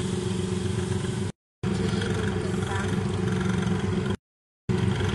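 Steady low motor hum with faint voices behind it, broken twice by short dead-silent gaps where video clips are joined.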